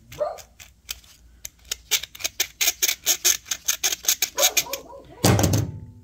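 Worn plastic belt idler pulley from a John Deere LA135 lawn tractor spun by hand, its bearing clicking and grinding in a fast, even run of about eight ticks a second. The failed bearing is behind the noise the tractor made when the clutch was let out. A brief, louder scrape near the end.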